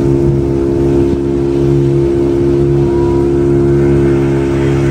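Speedboat's outboard motor running steadily at speed, an even drone over the rushing hiss of water and wind.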